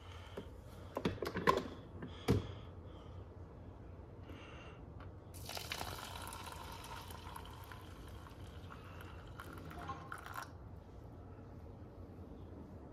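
A few clicks and knocks as a coffee maker is handled, then a thin stream of coffee pouring from the machine into a paper cup for about five seconds, cutting off about ten and a half seconds in.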